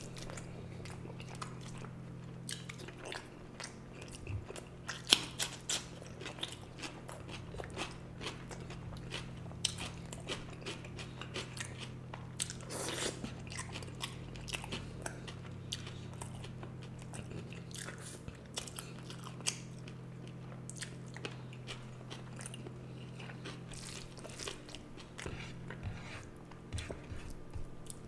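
A person eating fish curry, egg curry and rice close to the microphone: chewing and smacking, with many short sharp clicks and crunches throughout, the loudest about five seconds in. A steady low hum runs underneath.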